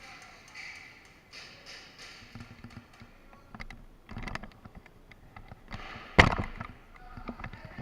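Airsoft Glock pistol fired once: a single sharp crack about six seconds in, among lighter clicks and taps.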